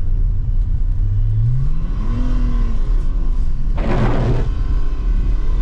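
BMW E39's diesel engine heard from inside the cabin, running steadily, then revving up about a second and a half in and holding the higher revs. A brief loud whooshing rush about four seconds in.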